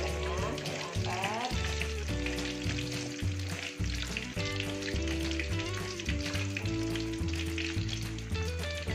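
Hot cooking oil frying and sizzling in a wok as a fried gourami is lifted out to drain. Background music with a bass line and held notes plays under it.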